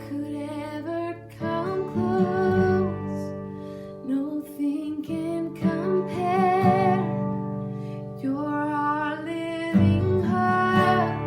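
Slow worship song played on strummed acoustic guitar, with sustained sung notes over it.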